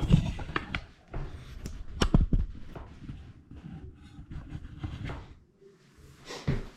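Camera being handled and set in place in a small room: irregular knocks, thumps and rustles, louder in the first half, then a last knock near the end.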